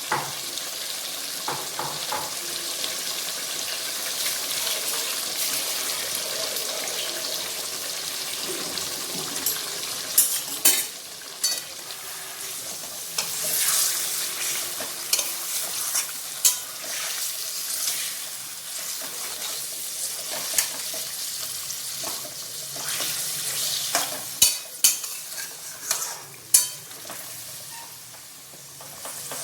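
Marinated chicken sizzling steadily in hot oil in a kadai while it is stirred, with a spatula knocking sharply against the pan now and then, several times near the end.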